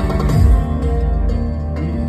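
Saxophone playing a melody over electronic keyboard accompaniment, with sustained notes and a bass line.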